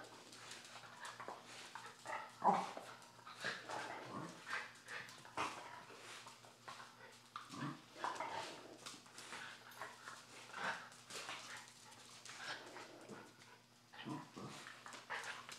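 Two dogs playing, with scattered short dog vocal sounds, the loudest about two and a half seconds in.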